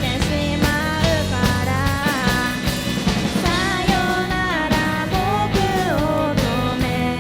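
Rock band music with a sung vocal line over drums, bass and guitars.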